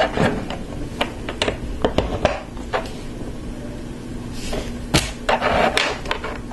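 Hard plastic LEGO Technic pins and beams clicking and knocking as they are handled and pushed together, a scatter of single clicks with a denser clatter of pieces about five seconds in.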